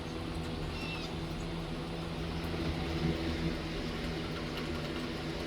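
Steady low mechanical hum, like a running machine or fan unit, with one faint short bird chirp about a second in.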